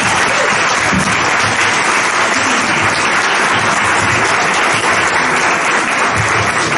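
Audience applauding steadily after a talk ends, dense hand-clapping.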